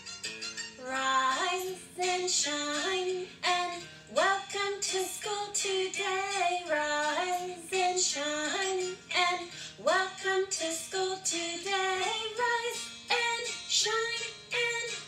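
A children's good-morning song: a sung melody over a light, rhythmic instrumental backing.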